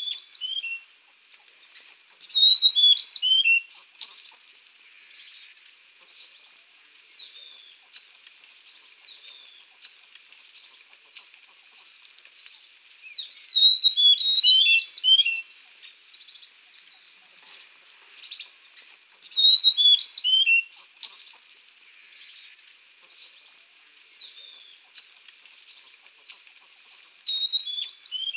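Songbirds singing. A quick burst of high chirps that steps downward in pitch comes every few seconds, with single soft calls in between.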